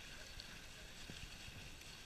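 Dog sled gliding over a packed snow trail: a steady hiss and rumble of the runners on the snow, with a soft knock about a second in.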